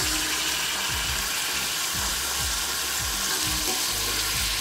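Raw chicken pieces sizzling in hot oil in an iron kadai, stirred with a steel ladle that scrapes against the pan. The sizzle is a steady hiss.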